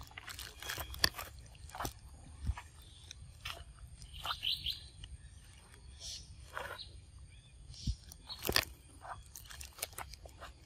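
A macaque chewing and biting into fresh fruit at close range: irregular crunches and wet clicks, with a few short high chirps about four to five seconds in.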